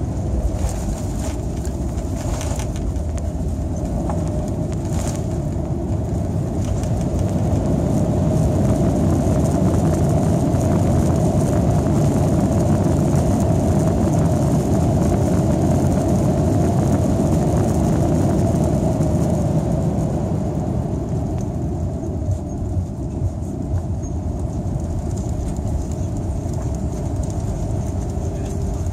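Boeing 787-9's Rolls-Royce Trent 1000 engine and roll-out rumble heard inside the cabin during the landing roll, a steady roar with a constant whine. It swells for about ten seconds in the middle as the engine runs up with the thrust reversers open to slow the aircraft, then eases off.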